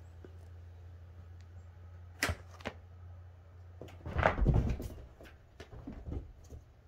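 Cats playing: two sharp knocks about two seconds in, then a heavy thump about four seconds in as the cats leap off a fabric recliner and land, followed by several softer thuds of paws running on carpet.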